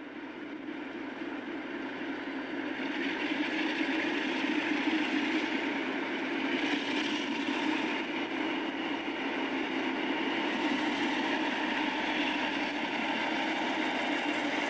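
Diesel locomotive engine running steadily, fading in over the first few seconds.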